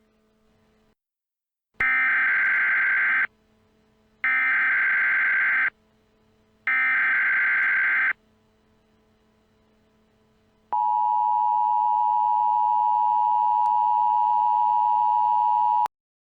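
Emergency Alert System header: three short bursts of warbling SAME data tones, then, after a pause, the steady two-tone EAS attention signal held for about five seconds before cutting off suddenly.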